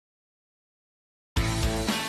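Complete silence, then background music cuts in suddenly about a second and a third in: a rock-style track with a steady beat and guitar.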